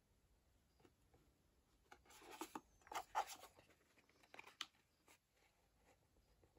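Faint handling noises of a reusable ecoffee cup being turned over and shown: a few soft rustles and light taps about two to three seconds in and again about four and a half seconds in.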